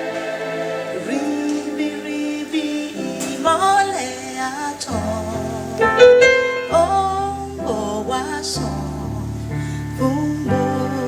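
Live gospel worship music: sustained keyboard chords under a singing voice that glides between held notes.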